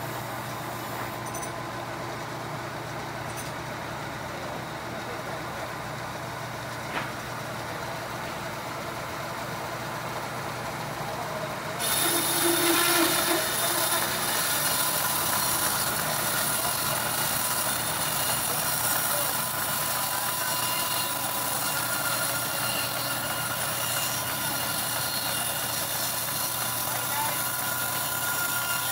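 Band sawmill running with a steady low machine hum. About twelve seconds in, the sound gets suddenly louder and a dense cutting noise with high whining tones joins as the band blade saws through the mahogany log, and it carries on steadily.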